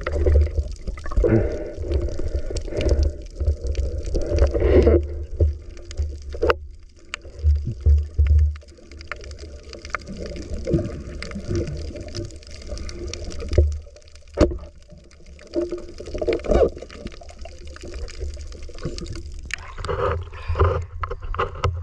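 Muffled water sloshing and gurgling picked up by a camera underwater, with a few sharp clicks. Near the end, splashing as the speared fish is lifted above the surface.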